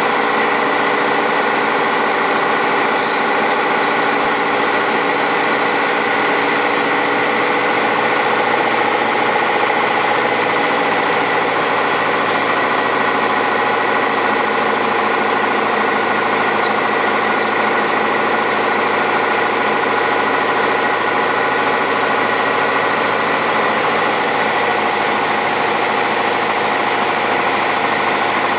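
Single-engine light aircraft's engine and propeller running steadily, heard from inside the cockpit, with an even, unchanging drone.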